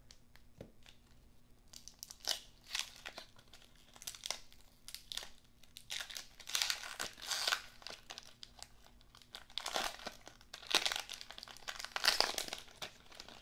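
Wrapper of a 1992-93 Topps basketball card pack being torn open and crinkled in the hands, in repeated bursts of crackling that start a couple of seconds in.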